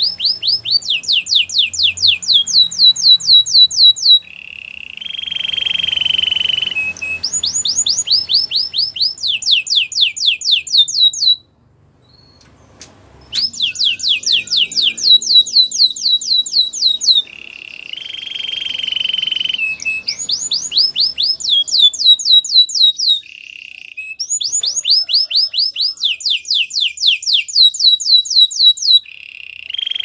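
White canary singing. Fast trills of rapidly repeated sweeping whistles alternate with lower, steady rolled notes, with a pause of about two seconds near the middle.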